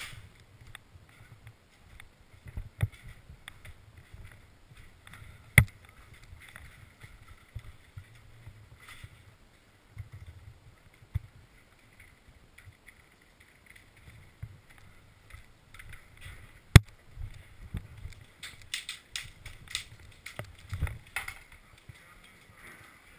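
Muffled handling and movement noise, with footsteps and gear rustling against the helmet-mounted camera, broken by a few single sharp clicks; the loudest comes about two-thirds of the way in, followed by a quick run of clicks and rustling.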